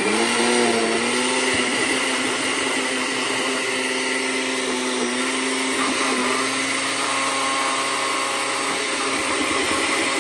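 Countertop blender running steadily with a constant motor whine, blending cream cheese, butter and a little egg until smooth.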